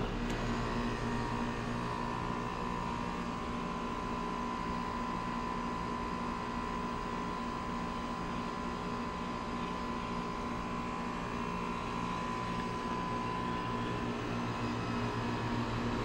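Bryant Preferred Series 4-ton central air conditioner condenser running steadily: a low compressor hum and a thin higher tone under the even rush of the condenser fan.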